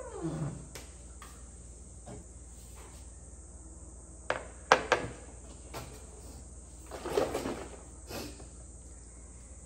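Food items being set down on a kitchen countertop from a refrigerator: a plastic food container with a locking lid, then a milk carton, each landing with a knock or clunk. The sharpest knock comes about halfway through and a small cluster follows near the end; a brief falling squeak is heard right at the start.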